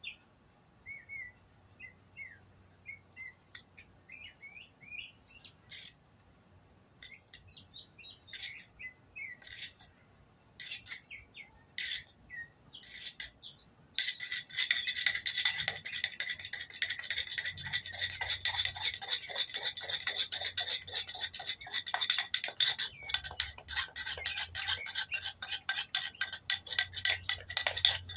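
A bird chirps in short calls while small handling clicks come and go. About halfway through, a fast back-and-forth rasping starts and runs on, much louder: a wooden board rolling a cotton-and-ash fire roll hard against concrete to heat it by friction.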